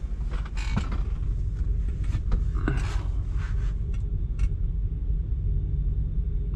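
Semi-truck diesel engine idling, a steady low rumble heard inside the cab, with a few clicks and rustles from handling things in the cab during the first three seconds.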